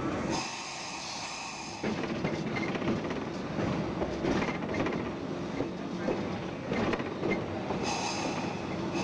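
Replica Pacific Electric Red Car streetcar running along the track, its wheels clicking over the rail joints. A high-pitched wheel squeal comes in about half a second in and lasts over a second, and returns near the end.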